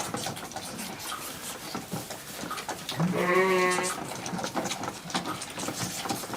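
A goat kid bleats once, a wavering call lasting about a second, about three seconds in, over light clicks and shuffling.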